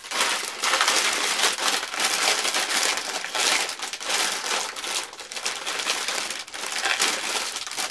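Packaging crinkling and rustling as items are handled and pulled out of a gift box, a dense run of small crackles throughout.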